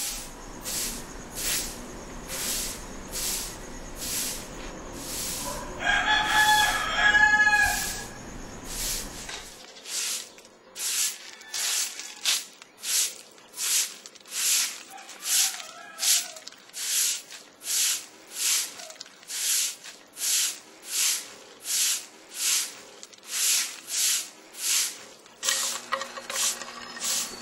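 A rooster crows once, about six seconds in, over a steady high-pitched pulsing sound that repeats about one and a half times a second.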